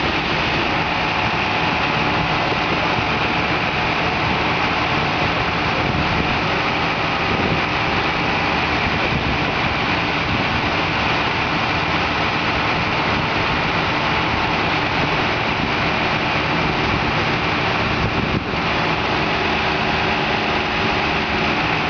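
Large forklift's engine running steadily as it carries a heavy machine.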